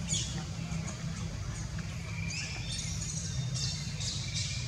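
Baby macaque giving high-pitched squealing cries, a couple near the start and a denser run through the second half.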